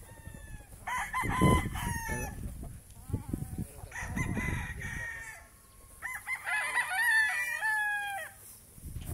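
Several gamefowl roosters crowing in turn, in three bouts, the last with crows overlapping from more than one bird. A loud low rumble of noise sits under the first crow.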